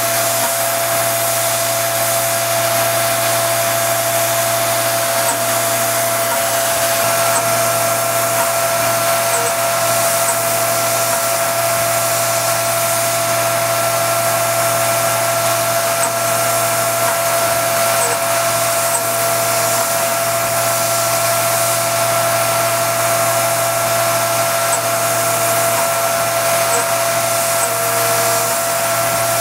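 CNC milling machine spindle running steadily while a small end mill cuts 3D lightening panels into a 1911 pistol slide: a steady whine with hiss over it. A second, higher tone joins about seven seconds in.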